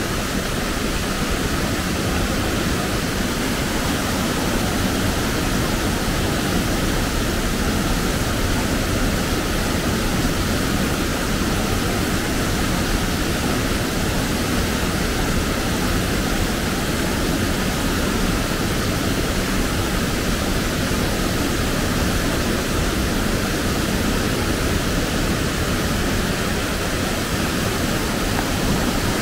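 Waterfall and white-water rapids pouring into a rocky stream pool: a steady, loud rush of falling water.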